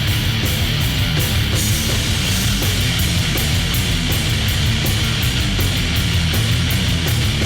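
Heavy rock music with distorted guitar and a driving drum beat.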